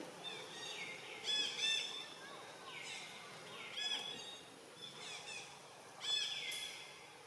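Birds calling: a series of short, high chirping calls, several sliding down in pitch, repeated about every second or so over a steady outdoor hiss.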